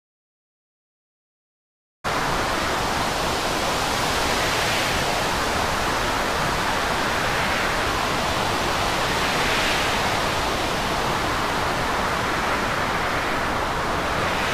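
Silence for about two seconds, then a steady rushing noise of storm wind and rough sea, swelling gently every few seconds.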